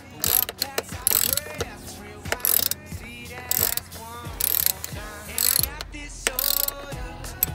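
Ratcheting box-end wrench turning a loosened bolt out: bursts of rapid clicking about once a second, one burst on each back-swing of the handle.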